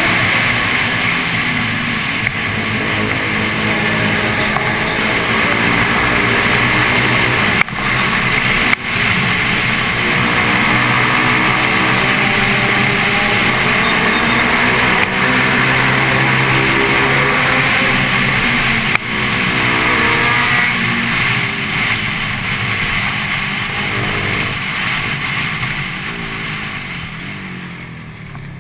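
Motorcycle engine running under way, its pitch rising and falling with the throttle, over a steady rush of noise. The sound drops out briefly three times and grows quieter near the end.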